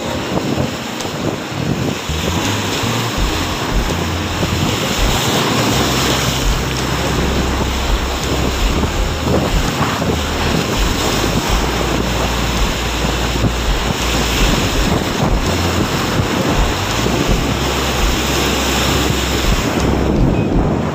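Rough sea waves breaking and washing over the boulders of a rock seawall, a continuous surf noise, with strong wind buffeting the microphone.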